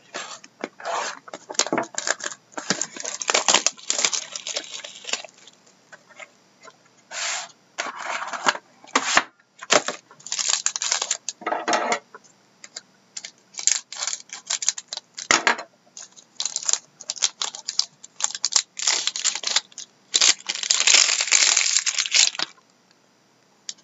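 Trading-card packaging being opened by hand: a sealed box cut open and a silver foil pack wrapper torn and crinkled in a run of short crackling bursts. The longest and densest crinkling comes near the end, as the wrapper is crumpled.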